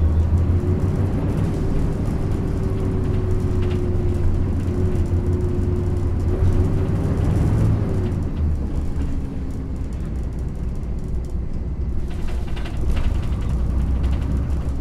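A Yutong ZK6128HG low-floor city bus under way, heard from inside: a low engine drone with a steady whine over it for about eight seconds, then the drone and whine fall away. A brief burst of body rattling comes near the end.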